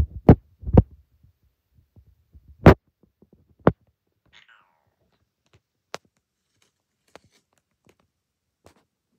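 Cats moving on a carpeted cat tree: four short dull thuds in the first four seconds, the loudest near the middle, then a few faint clicks.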